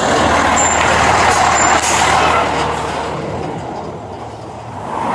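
Fire engine driving past close by, its engine and road noise loud at first and fading over a few seconds as it moves off. No siren is heard.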